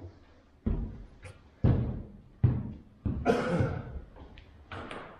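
Sheet-metal piece knocking and thudding against an OSB roof deck as it is handled and pressed into place: four heavy knocks about a second apart, a short scraping rattle after the last, then lighter knocks.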